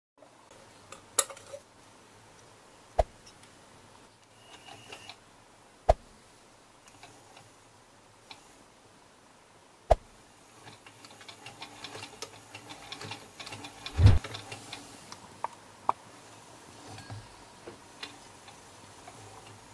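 Butterfly sewing machine being handled and worked by hand: a few sharp single clicks several seconds apart, then midway a run of light, rapid mechanical ticking with one heavier knock.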